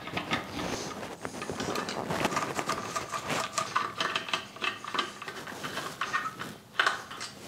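Irregular small clicks, taps and scrapes of a screwdriver turning out screws on the metal top and chute nose of a Eureka Mignon Specialita coffee grinder, with the housing being handled.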